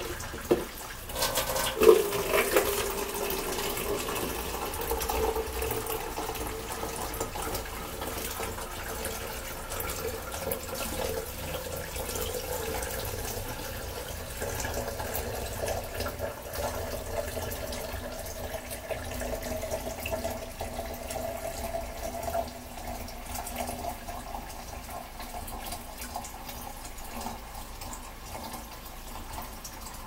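Kitchen faucet running into a stainless steel sink as a plastic cup is filled and water is poured over hair to rinse it. There is a sharp knock about two seconds in, and a faint tone slowly rises in pitch through the middle.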